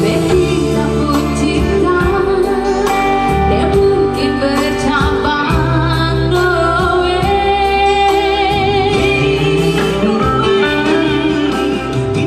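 A woman singing a song into a microphone over electronic keyboard accompaniment, amplified through a PA; her long held notes carry a clear vibrato.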